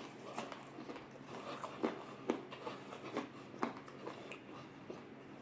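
Close-up eating sounds: chewing and crunching on crispy fried chicken, with several sharp crunches in the first four seconds and quieter chewing after.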